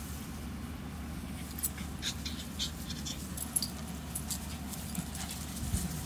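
Dogs, among them a Rhodesian Ridgeback and a Carolina dog, play-wrestling on grass: scuffling and panting, with scattered light clicks and ticks over a steady low hum.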